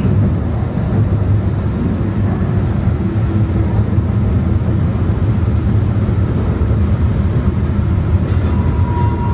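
Steady low rumble of a DART Kinki Sharyo light rail vehicle running on the track, heard from inside the passenger car. A short, thin high tone sounds near the end.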